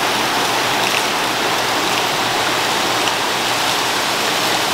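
A jet of water pouring and splashing steadily into a trout pond, keeping its surface churned and foamy.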